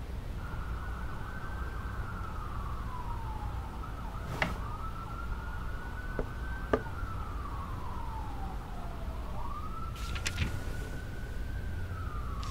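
Emergency-vehicle siren wailing in the background, rising and falling slowly three times, over a low steady rumble. A few light clicks sound at intervals.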